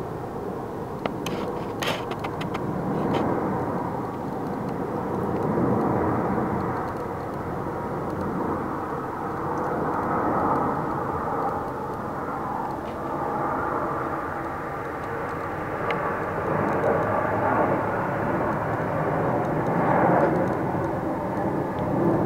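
Red Arrows' BAE Hawk jets flying over in formation: a continuous jet roar that swells and eases several times.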